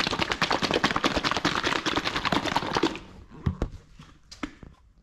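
A quart bottle of 3M Perfect-It machine polish shaken hard by hand to mix it before use: a fast, even sloshing rattle at about eight strokes a second, which stops about three seconds in. A few scattered knocks follow.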